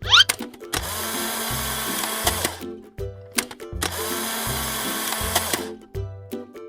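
Background cartoon music with a steady repeating beat, overlaid by two whirring, drill-like machine sound effects, each lasting about two seconds, with a short rising glide at the very start.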